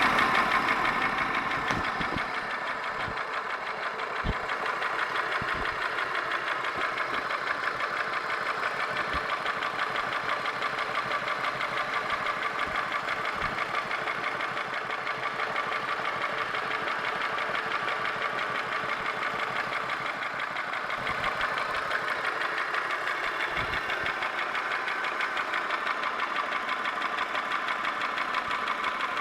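Holden Commodore VY's Buick 3800 Series II (Ecotec 3.8) V6 running steadily at idle with a fast, even ticking over the engine note. The owner cannot tell whether this is valvetrain noise such as lifter tick or a bottom-end noise such as a rod bearing knock.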